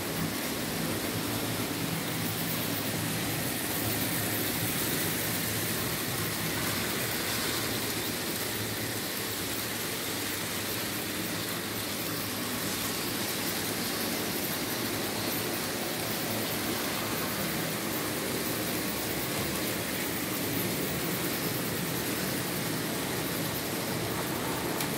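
Märklin H0 model trains, including a V 216 diesel locomotive with passenger coaches, running on metal track: a steady running noise of motors and wheels with a low hum underneath.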